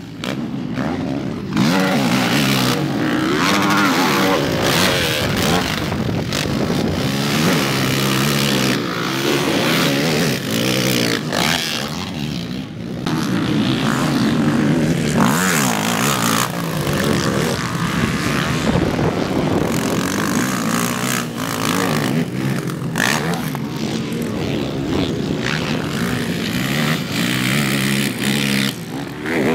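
Racing quad bikes' engines revving hard, their pitch climbing and dropping again and again as they accelerate, shift and pass, with several engines overlapping.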